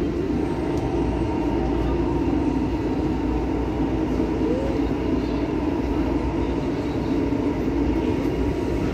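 Tokyo Metro 6000 series electric commuter train running, heard from inside the car by the doors: a steady rumble of wheels on rail with a low hum.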